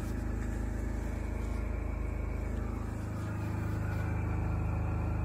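Portable generator engine running steadily, a low even hum, heard from inside the truck's box body where it powers the radio station.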